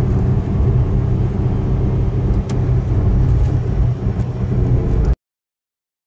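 Car road and engine noise while driving, a steady low rumble heard from inside the car, which cuts off suddenly about five seconds in.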